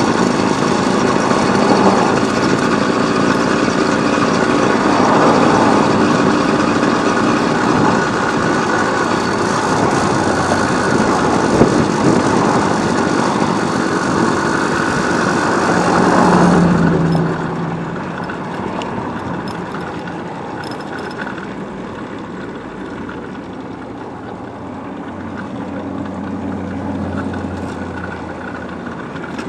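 Motorcycle engine running under way, with wind noise rushing over the microphone; about two-thirds of the way through the sound drops away as the bike slows, leaving a quieter, low-pitched engine idle.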